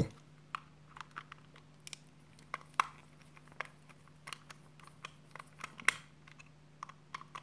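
Faint, irregular small clicks and ticks of a small screwdriver working a screw in the plastic housing of a Philips HQ7340 electric shaver, along with the plastic body being handled, over a low steady hum.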